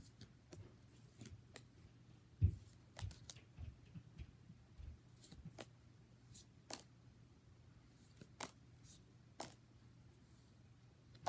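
Pokémon trading cards being flipped through by hand: faint, irregular card flicks and snaps, with a few soft thumps in the first five seconds, over a faint steady low hum.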